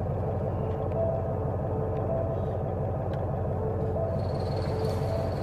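A steady low engine rumble, running evenly.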